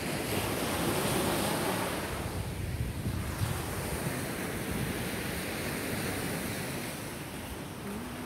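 Sea surf washing on a sandy beach, with wind buffeting the microphone.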